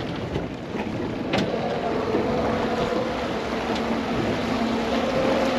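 Wind buffeting the microphone on a fishing boat, with water noise and a faint steady motor hum underneath; a single sharp knock about a second and a half in.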